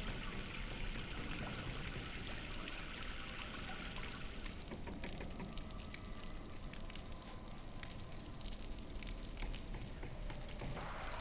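Steady rush of water with many small scattered clicks and drips, thinning out in the middle for several seconds before filling back in near the end.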